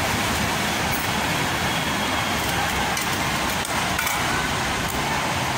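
A steady rushing noise, with a few faint clicks about one, three and four seconds in.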